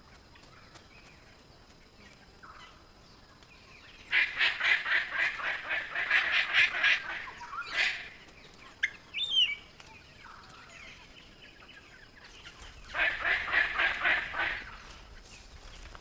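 Palm cockatoos calling: two bouts of harsh, rapidly repeated squawks, the first lasting about three seconds, the second shorter near the end, with a short whistled note between them.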